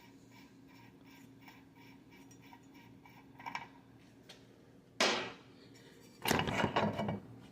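Hand tools on a boat outboard's propeller: one sharp metallic clank about five seconds in, then a quick, uneven run of loud clicks and knocks.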